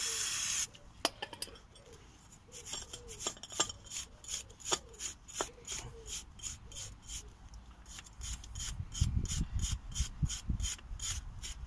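A short hiss of aerosol brake cleaner spray that stops just under a second in, then a small wire brush scrubbing road grime off the brake caliper bridge in quick strokes, about four a second.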